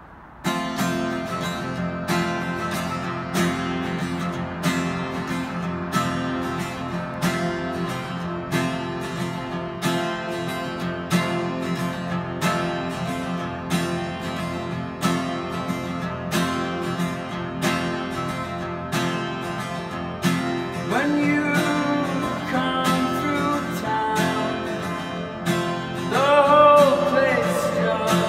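Acoustic guitar strummed in a steady rhythm, starting just after the beginning. A man's singing voice comes in about 21 seconds in and again near the end, over the guitar.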